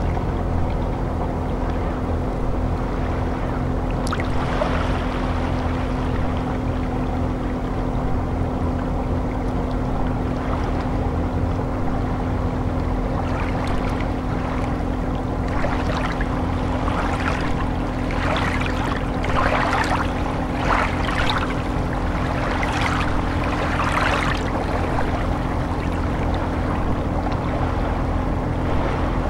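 Small waves lapping on a pebble shore of a calm sea, a run of light splashes through the middle, over a steady low hum.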